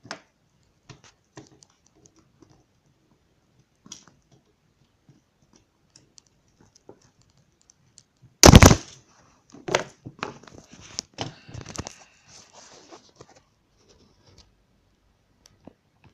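Small clicks and handling noises of a laser printer's fuser unit being worked on by hand as its springs are hooked back onto the lower section, with one loud sharp knock about halfway through followed by a flurry of clicks and rustles.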